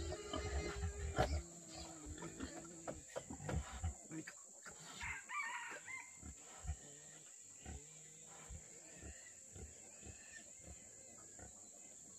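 Chickens calling, loudest in the first second and a half, with a few higher calls about five seconds in. Scattered light knocks and clicks run throughout.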